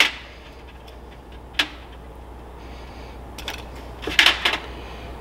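Small clicks and clatter of a 24 mm Mikuni carburetor and its small metal parts being handled over a metal tray: one click at the start, another about one and a half seconds in, and a short cluster of clicks about four seconds in.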